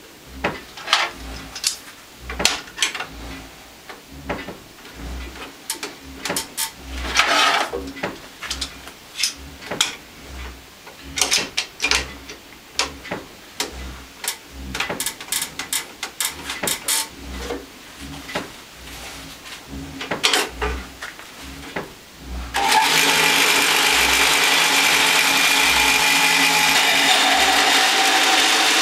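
Irregular clicks and knocks as a wooden block is clamped and adjusted in the lever-operated mortising table of a combination woodworking machine. About 23 seconds in, the machine's electric motor switches on and runs loud and steady.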